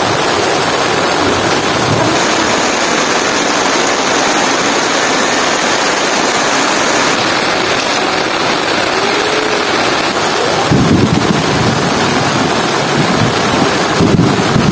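Heavy rain falling steadily, a dense even hiss. About eleven seconds in it grows slightly louder with a deeper rumble underneath.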